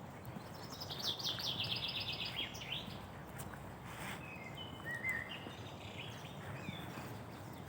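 Songbirds singing in spring woodland: one loud, fast trilled phrase running down in pitch about a second in, then several shorter whistled notes from other birds, over a steady low background hum.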